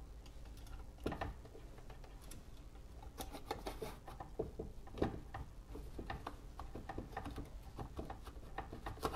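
Small metal and wooden clicks, taps and scrapes as the plate film holder is worked out of the back of an Ihagee Patent Duplex folding plate camera. Sharper clicks come about a second in, about five seconds in and near the end.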